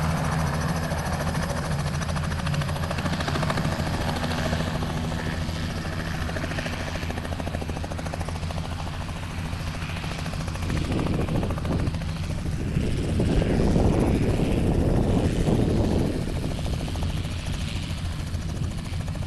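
Helicopter's rotor and engine drone steadily as it comes in to land. It grows louder with a rushing noise from about eleven to sixteen seconds in, then eases back.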